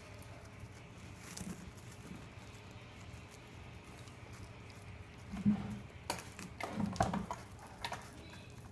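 Samoyed puppy eating ice from a stainless steel bowl: ice pieces clicking and knocking against the metal as it licks and chews. The sounds are light and scattered at first, then a run of louder sharp clicks and knocks comes in the last few seconds.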